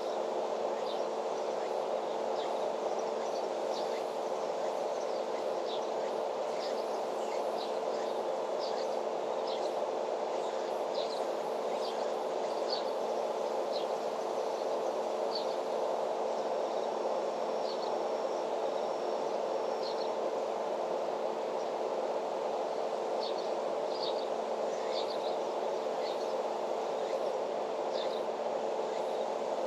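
Outdoor ambience: many short, high bird chirps scattered through a steady, even hum that holds a couple of constant low tones. A thin, steady high insect-like tone sounds for a few seconds around the middle.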